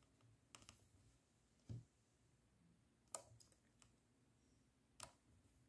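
Faint, sharp clicks of the W/T zoom buttons being pressed on a Sony Mavica MVC-FD81 digital camera, about four or five separate clicks spread over several seconds, the loudest about three seconds in.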